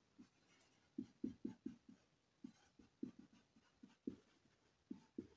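Marker pen writing on a white board: a faint run of short strokes, several a second, starting about a second in and coming irregularly as each letter is drawn.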